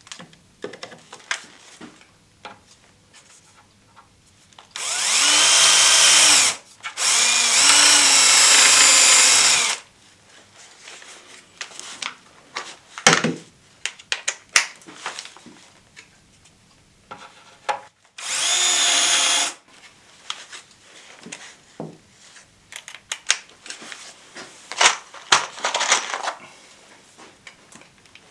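Cordless drill-driver running in three bursts of one to three seconds each, spinning up and then holding speed as it works into chipboard cabinet panels. Short clicks and knocks of handling the tool and the panels come between the bursts.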